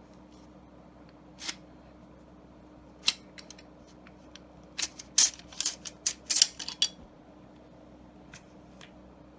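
Metal parts of a Beretta A400 semi-automatic shotgun being handled during disassembly: a couple of sharp single clicks, then a quick run of clicks and rattles near the middle, and a few faint clicks near the end.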